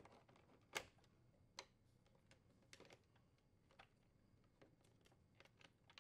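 Faint, scattered plastic clicks as wire-harness connectors are pulled off a refrigerator dispenser's control board, about eight in all, the loudest about a second in.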